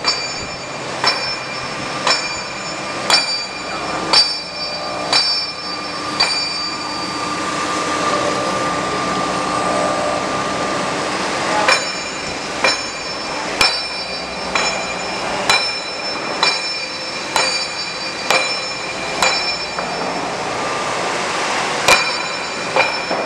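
UE-460DSA metal-cutting band saw running through a round steel bar, with a sharp metallic click about once a second that rings briefly. The clicks stop for a few seconds around the middle, when a steadier hiss with a faint tone takes over, and then resume.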